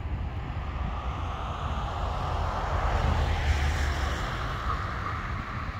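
A passing vehicle: steady traffic-like noise that swells to a peak about three or four seconds in and then eases off, over a low wind rumble on the microphone.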